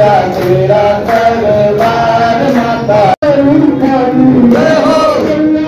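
Voices singing a devotional Hindu bhajan (kirtan) with melodic, chant-like lines, cut off for an instant about three seconds in.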